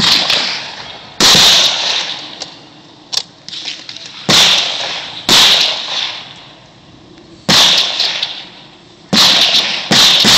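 Gunshots: about six loud shots at irregular intervals, each ringing out for a second or so, with a few fainter shots in between.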